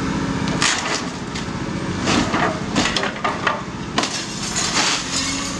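Caterpillar 336E excavator's sorting grab tearing into a roof: timbers cracking and splintering in a string of irregular sharp cracks.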